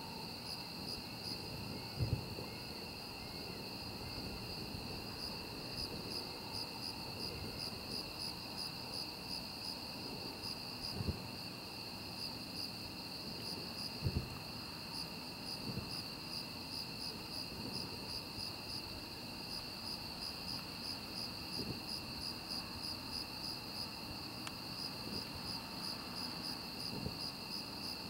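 Crickets chirping in a steady, fast-pulsing high-pitched trill. Over it come dull, distant fireworks booms, three of them louder than the rest.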